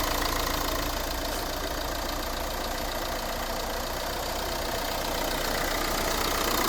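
Opel Movano 2.3 biturbo diesel engine idling steadily. At idle it runs without the injector knock that only shows up under load.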